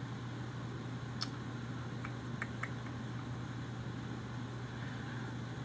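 Steady low hum of room tone with a handful of faint, short clicks in the first three seconds, from clicking through a product web page.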